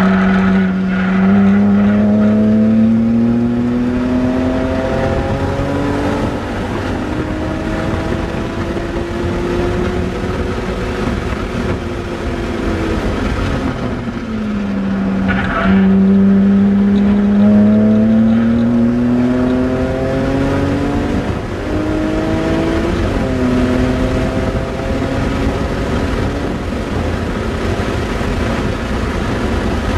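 Car engine heard from inside the cabin under hard track driving, revs rising slowly under load, falling as the car slows for a corner about halfway, then climbing again with a couple of gear changes before settling. Brief tyre squeals near the start and around the middle.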